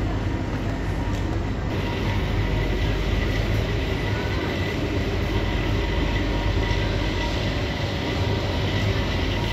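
Steady low hum and rumble with a faint thin whine, the running noise of glass-door freezer display cases.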